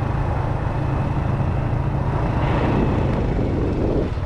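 Motorcycle engine running steadily while riding, with road and wind noise over the microphone.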